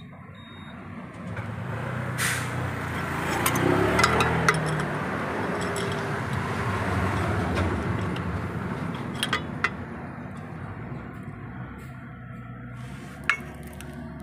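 A motor vehicle's engine passing by, a low rumble that swells over a few seconds and then slowly fades, with a short hiss near the start of the swell. A few light metallic clicks sound through it.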